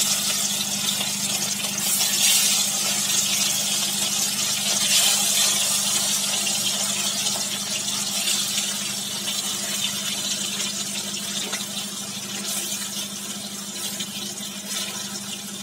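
Rohu fish steaks sizzling as they deep-fry in hot mustard oil, a dense steady hiss that swells as fresh pieces are laid into the pan and slowly eases off.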